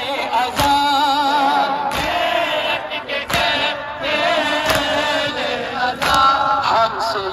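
Men's voices chanting an alvida (farewell) noha in long wavering lines, with the crowd's chest-beating matam landing together as a sharp slap about every 1.3 seconds.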